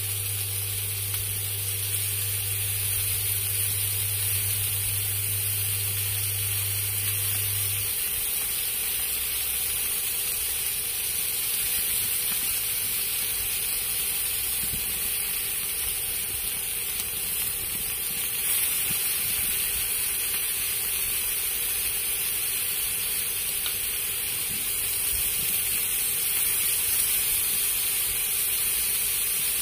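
Clams in their shells sizzling and steaming on a hot pan, a steady hiss. A low steady hum underneath stops about eight seconds in.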